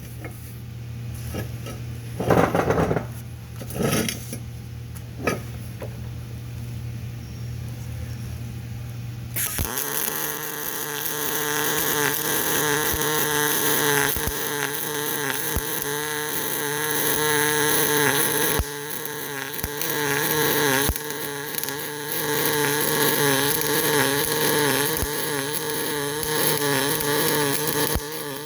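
A steady low hum with a few knocks, then from about ten seconds in a continuous loud crackling buzz from an electric welding arc, with a couple of short breaks.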